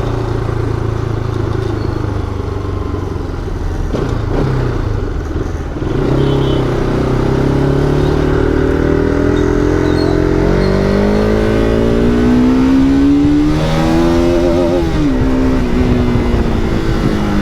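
Motorcycle engine running under way. From about six seconds in, its pitch climbs steadily as it accelerates, then dips and rises again near the end.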